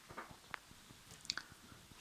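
A few faint, short clicks and rustles of handling, three small sounds spread over the two seconds, the middle one a sharp tick.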